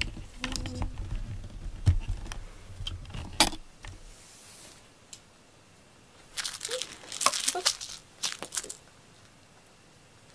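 A cat scuffling in play: paw thumps and scrabbling on the floor with a couple of sharp clicks, then, after a lull, bursts of rustling and crinkling as a toy mouse on a string is dragged into the cat bed.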